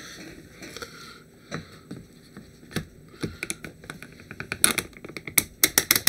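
Hard plastic parts of a large miniature being handled and pushed together: soft rustling at first, then a quickening run of sharp clicks and taps in the second half as a piece is seated.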